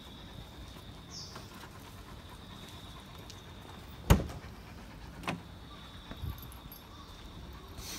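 A sharp knock about four seconds in, the loudest sound, then a lighter knock a second later and a dull thump shortly after. Under them runs a steady low hum with a faint high tone.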